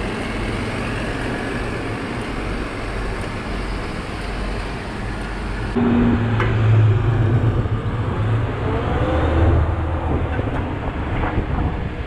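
Heavy diesel farm machinery running steadily. About six seconds in the sound switches abruptly to a louder, deeper engine drone whose pitch briefly rises and falls.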